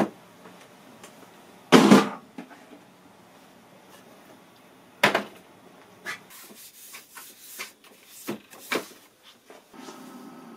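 Thumps and knocks of heavy bench equipment being handled on a wooden workbench, the loudest about two seconds in, followed by a run of lighter clicks and knocks. Near the end a steady electrical hum starts as the old portable television set is switched on.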